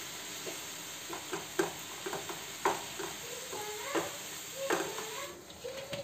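Spiced onion masala sizzling as it fries in a non-stick frying pan, with a spatula stirring and scraping through it in short strokes. The sizzle cuts off about five seconds in.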